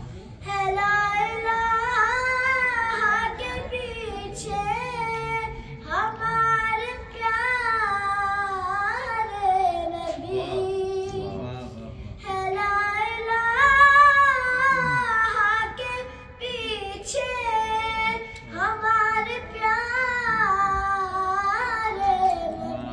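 A boy singing an Urdu devotional kalam unaccompanied, in four long phrases of held, wavering notes with short breaths between them.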